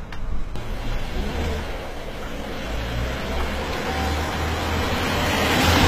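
A car approaching with its engine running, growing steadily louder as it nears.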